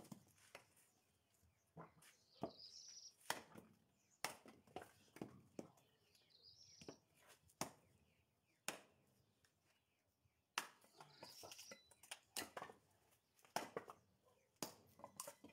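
Hatchet splitting firewood on a wooden chopping block: a series of sharp wooden knocks and cracks at irregular intervals, about one every second or so, with a short pause a little past halfway.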